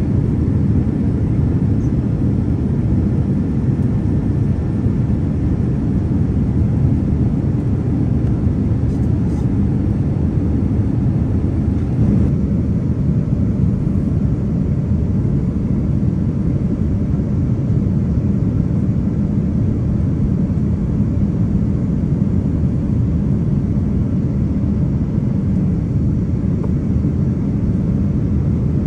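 Steady low roar of a Boeing 787-9 Dreamliner's cabin in flight: engine and airflow noise heard from inside, unchanging throughout.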